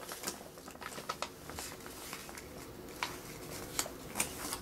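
Faint, irregular ticks and scratches of a marker writing on a small slip of paper held in the hands.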